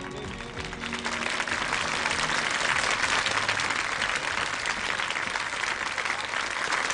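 Audience applauding after the song's final notes, the clapping building up about a second in and then holding steady.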